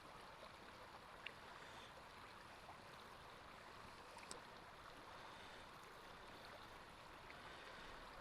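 Faint, steady rush of creek water, with two tiny clicks about a second and four seconds in.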